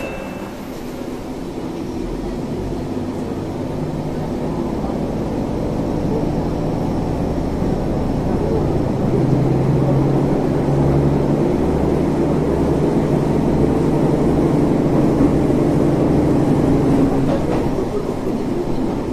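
Diesel railcar pulling away from a station, heard from inside the car: the engine works under load and the running noise grows steadily louder as the train gathers speed.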